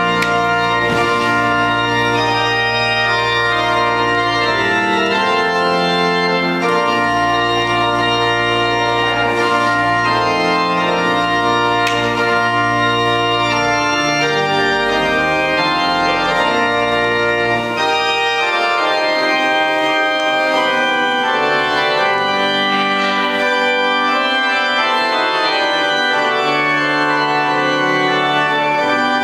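Church organ playing a bridal processional in held chords. The deep bass notes drop out about two-thirds of the way through.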